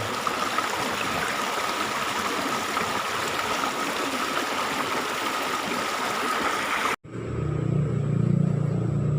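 River water rushing and flowing steadily for about seven seconds, then an abrupt cut to a low engine rumble.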